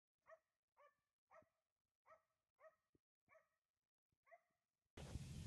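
A dog barking repeatedly, faint, in a steady run of short barks about two a second, seven or so in all. Near the end a louder, steady low rumbling noise cuts in suddenly.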